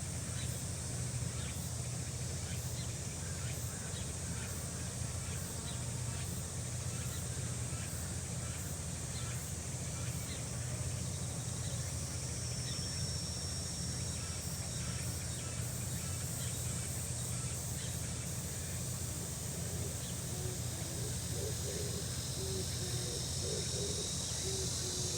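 Outdoor summer nature ambience: a steady high insect drone with scattered short bird chirps over a low steady rumble.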